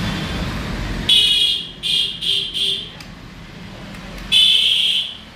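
A high-pitched squeal comes in five bursts: a long one about a second in, three short ones quickly after, and another long one near the end. Rough background noise runs underneath and drops away about a second in.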